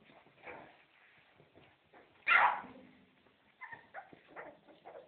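Four-week-old Staffordshire terrier puppy giving one loud yap a little over two seconds in, followed by several softer whimpers and yips.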